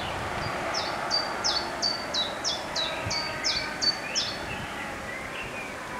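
A songbird singing a run of about ten sharp, repeated notes, about three a second, each dropping in pitch, then a few fainter calls, over a faint steady background noise.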